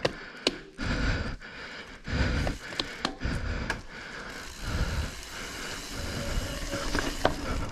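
Mountain bike ridden slowly uphill along a narrow skinny, with the rider breathing hard in uneven bursts and scattered clicks and knocks from the bike.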